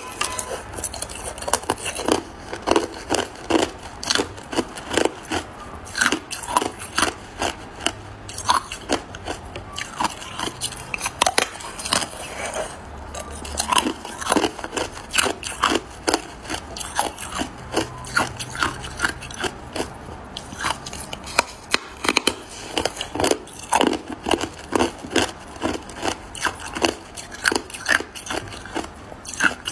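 A person biting off and chewing chunks of a large slab of hard ice. There are rapid, irregular sharp crunches and cracks as the ice breaks between the teeth, with a couple of brief pauses.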